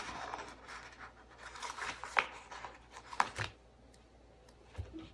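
Paper planner sticker sheet rustling and crinkling as stickers are peeled off its backing, with a couple of sharp snaps about two and three seconds in. The handling noise quietens near the end.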